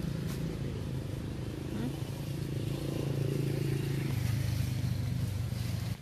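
A vehicle engine running steadily, a low hum that shifts slightly in pitch and then cuts off suddenly at the end.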